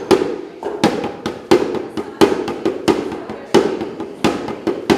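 Large frame drum beaten with a stick in a steady beat. A strong stroke comes about every three-quarters of a second, with lighter strokes between, and each stroke rings briefly.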